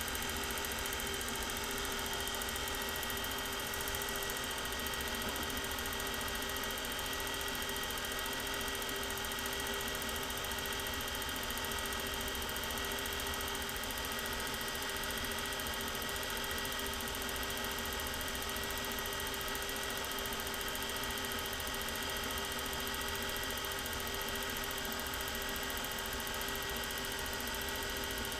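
Film projector running: a steady motor and fan whir with an even hum of several held tones.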